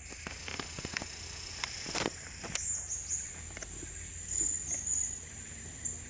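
Forest ambience: a steady, high-pitched insect drone, with scattered short, sharp high chirps and ticks from a bird. The loudest are about two and two and a half seconds in.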